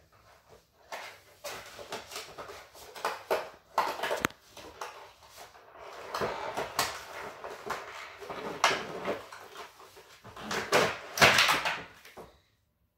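Cardboard toy box and plastic wrapping rustling and crinkling in irregular bursts as a handheld toy is pulled out of its box. It is loudest shortly before the end, then cuts off suddenly.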